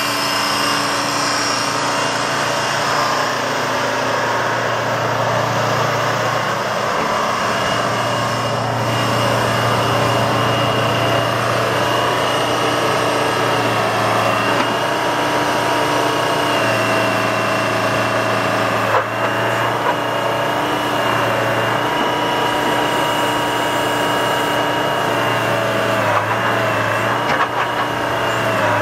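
Old hydraulic crawler excavator running, its engine holding a steady low note under a steady high whine while the boom and bucket are worked and the upper swings. A couple of short knocks come about two-thirds of the way in and near the end.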